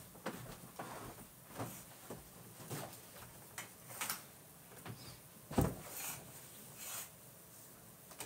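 Scattered light clicks and knocks, with one heavier thump a little past halfway: someone moving about off-camera and handling things around a room.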